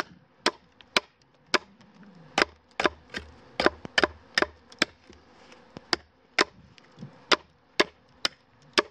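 Schrade knife blade chopping a point onto the end of an oak stake, a run of sharp wooden chops about two a second at an uneven pace, as chips are split off.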